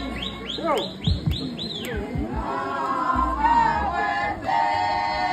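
A quick run of about seven high whistled calls, each rising and falling, in the first two seconds, then voices singing held notes in a chant, with people talking underneath.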